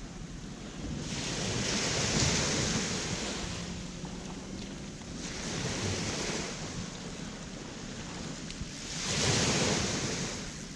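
Small waves breaking and washing up on a sandy beach, the surf swelling three times about every four seconds.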